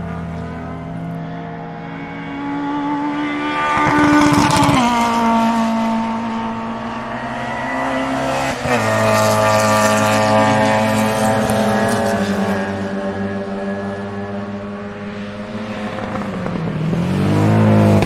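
Race car engine sound at high revs. The pitch climbs, then drops sharply about four and a half seconds in and again near nine seconds. It then sinks slowly, and a fresh rise and fall comes near the end.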